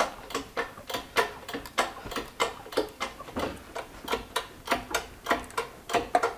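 Hand-pumped hydraulic shop press working, with a quick run of sharp clicks, roughly three a second and not quite even, from its pump as a copper strap is squeezed over a former. The clicking stops just at the end.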